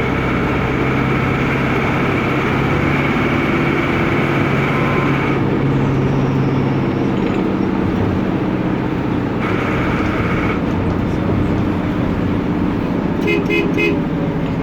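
Air-cooled Deutz F4L912 four-cylinder diesel of an Otokar M-2000 minibus running under way, loud and steady, heard from the front of the bus. Near the end come four quick beeps.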